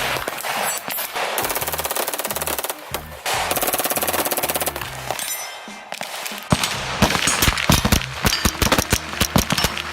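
Two long bursts of rapid automatic gunfire, then many separate shots from about six and a half seconds in, over background music with a steady bass line.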